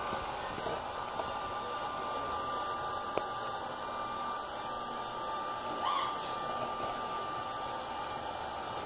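Steady whooshing noise with a thin, steady whine running through it, and one faint click about three seconds in.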